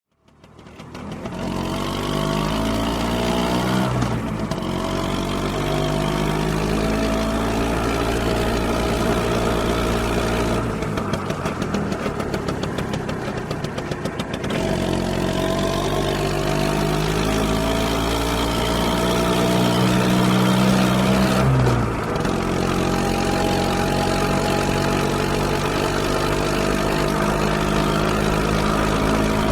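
Small motor scooter engine running as it rides, rising in pitch through several long pulls on the throttle, with the pitch dropping sharply about 4, 11 and 22 seconds in as the throttle is eased off.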